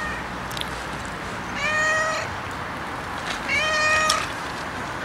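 Tabby-and-white domestic cat meowing: two meows about two seconds apart, each under a second long, after the tail of an earlier one at the start, over a steady background hiss.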